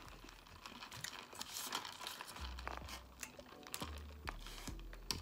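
Paper food wrapper crinkling in the hand, with scattered light crackles.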